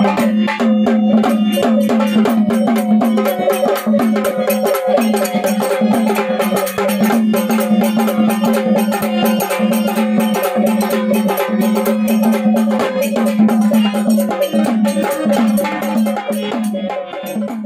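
Marathi jagran folk devotional music: fast, busy hand percussion and rattles over a steady held drone.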